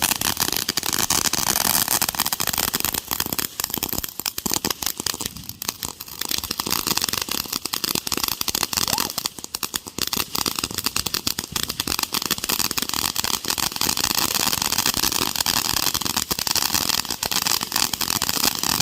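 Consumer fireworks crackling and popping in a dense, continuous run, easing briefly twice, a few seconds in and again about halfway through.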